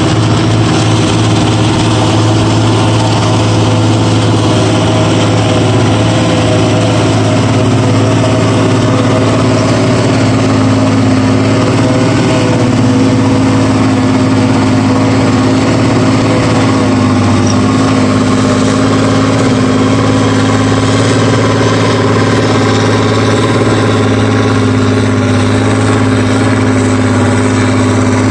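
John Deere 7930 tractor's six-cylinder diesel engine running steadily under load, pulling a PTO-driven forage harvester that is picking up and chopping windrowed grass.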